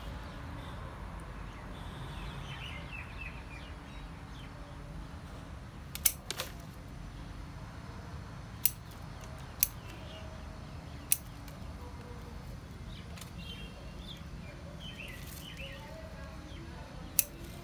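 Steel scissors snipping leaves and thin shoots off a young peepal (Ficus religiosa) tree. The snips are single and sharp, spaced a second or more apart, with a quick double snip about six seconds in.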